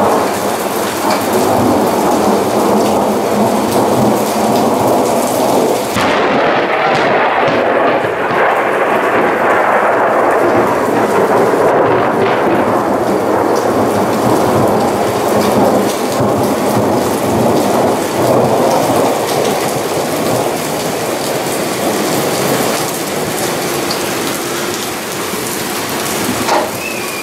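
Thunderstorm: rain falling steadily on surfaces, with thunder.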